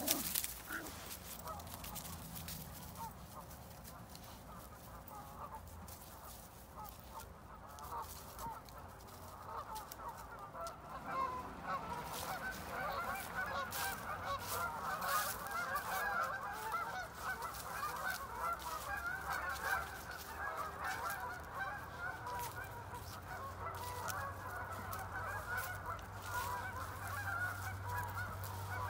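A flock of geese honking, many calls overlapping and thickening into a dense, continuous chorus about eleven seconds in.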